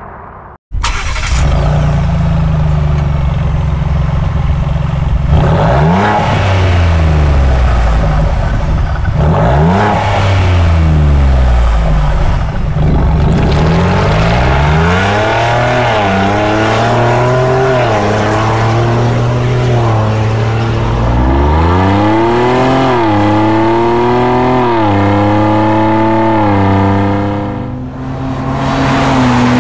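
Ford Bronco 2.7L EcoBoost twin-turbo V6 running through a Borla ATAK exhaust. After a few seconds of steady idle it is revved repeatedly while standing, each rev climbing and falling back, with the biggest revs in the second half. Near the end it settles into steady running.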